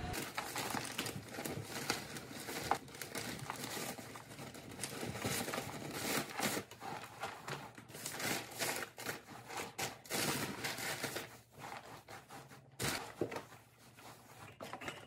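Loose paper bedding rustling and crinkling as it is poured from a plastic bag into a plastic bin and spread around by hand, in irregular crackly bursts.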